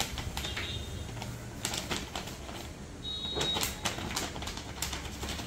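Plastic treat pouch crinkling in several short bursts as it is shaken to get a cat's attention.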